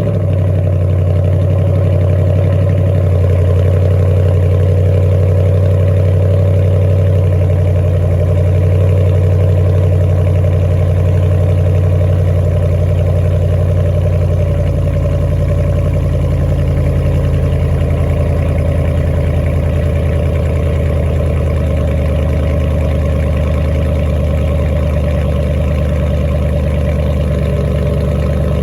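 Dodge Durango's 5.7 Hemi V8 idling steadily just after being started, heard through its stock exhaust with a mid-muffler delete.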